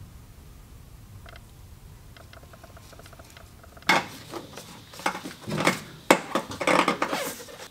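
Metal hardware and hand tools clinking and clattering while a hose clamp on a fuel-tank filler neck is worked on. There are faint quick ticks at first, then from about four seconds in a run of sharper, louder clicks and rattles.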